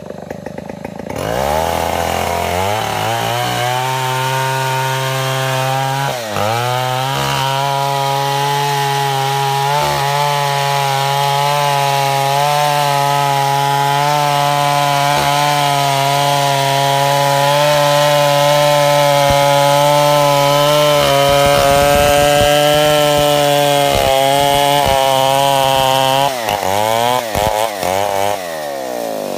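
Stihl 070 two-stroke chainsaw revving up about a second in, then running at full throttle through wood, with a brief dip in revs around six seconds. Near the end the revs waver, then fall away as the throttle is released.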